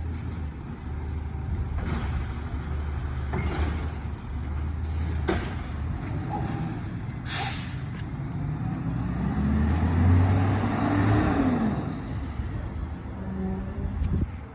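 Recycling garbage truck's diesel engine running steadily, with a few sharp knocks, a short burst of air hiss about seven seconds in, then the engine revving up and back down around ten seconds in.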